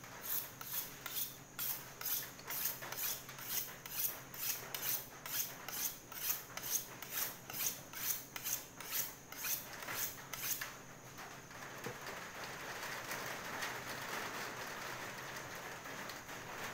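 A butcher's knife honed against a sharpening steel: quick, even metal-on-metal strokes, about two and a half a second, that stop about ten seconds in. A steady hiss follows.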